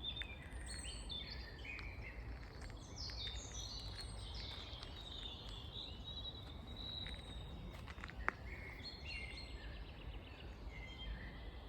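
Several songbirds singing and chirping, their calls overlapping, over a low steady rumble. A single sharp tick about eight seconds in.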